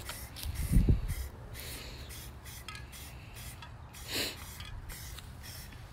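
Aerosol can of Krylon satin black paint-and-primer spraying in short hissing bursts, dusting a light first coat. A low thump about a second in is the loudest sound.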